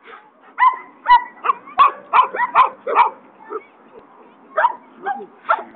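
A dog barking hard in quick repeated barks, about three a second, a short lull, then a few more near the end. This is the excited barking of a dog being worked up by a handler's agitation in protection training.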